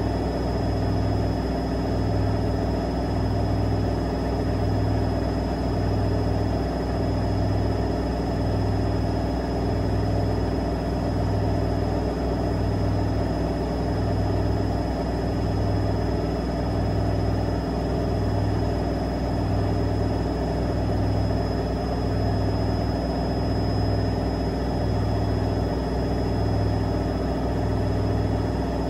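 AEG front-loading washing machine spinning its drum steadily at high speed during the intermediate spin, a motor whine with a steady high tone over a low hum that pulses a little under once a second.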